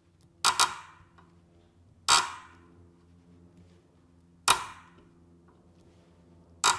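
Camera shutter firing four times, about two seconds apart, each a sharp click with a short ringing tail; the first and last are quick double clicks.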